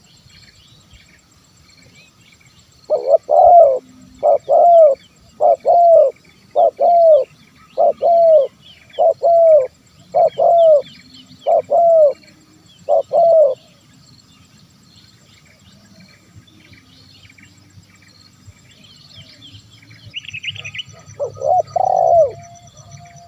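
Spotted dove cooing: a run of about ten short coos, roughly one a second, then a long pause and one more call near the end. Faint chirping of small birds runs behind it.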